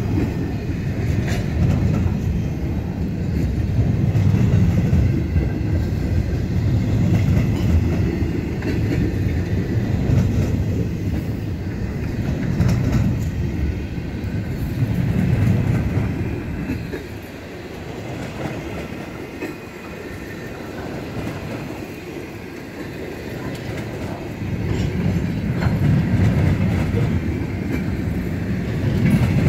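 Wheels of a BNSF double-stack intermodal freight train's container cars rolling past on the rails in a steady low rumble. It turns quieter for several seconds past the middle, then builds again.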